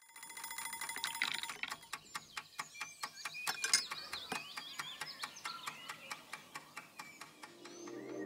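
Steady clock-like ticking, about four ticks a second, with a ringing tone in the first second and a half and chirping whistles around the middle.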